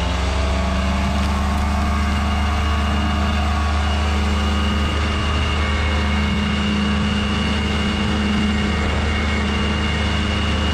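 Paramotor trike's Fresh Breeze Monster engine and propeller running at full power during a take-off roll across grass. A steady, loud drone that climbs slightly in pitch in the first second, then holds.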